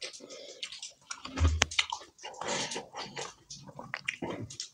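Close-up eating sounds of a person chewing chicken kebab and rice: irregular wet smacks and small clicks from the mouth. There is a dull thump about one and a half seconds in.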